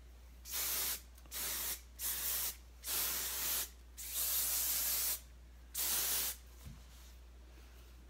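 Schwarzkopf Osis Session Texture Hairspray aerosol can spraying in six short hissing bursts of varying length, the longest a little over a second.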